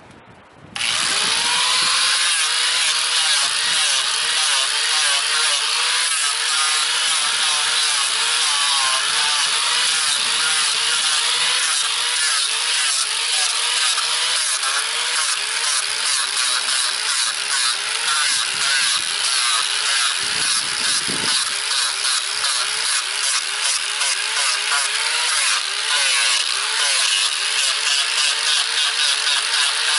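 A 4.5-inch angle grinder with a very coarse (25 to 30 grit) sanding disc starts about a second in, its whine rising as it spins up. It then runs loud and steady, sanding and shaping wood, and its pitch wavers as the disc is pressed into the carving.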